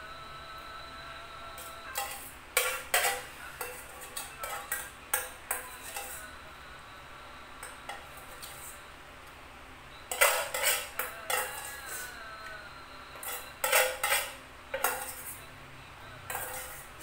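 Spoon clinking and scraping against a bowl while scooping up the last of a soup. The clinks come in bursts of quick strikes, the loudest about ten and fourteen seconds in, some with a short ring from the bowl.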